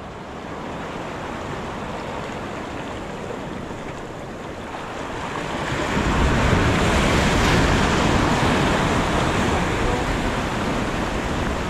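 Sea surf washing against the rocks of a jetty, with a larger wave surging in about halfway through and staying louder for a few seconds before easing.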